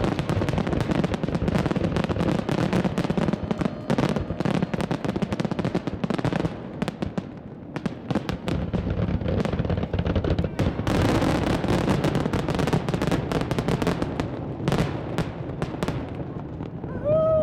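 Aerial fireworks display: a rapid, continuous barrage of shell bursts, bangs and crackling, with many shells going off at once. There is a brief lull about seven to eight seconds in.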